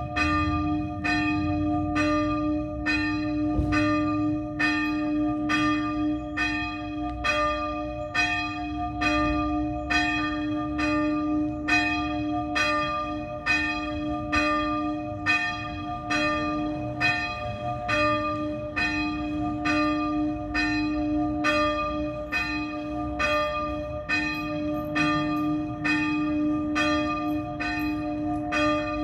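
A single small church bell, the sonello, swinging in distesa, its clapper striking evenly about once every 0.7 seconds in a steady, unbroken peal of one pitch.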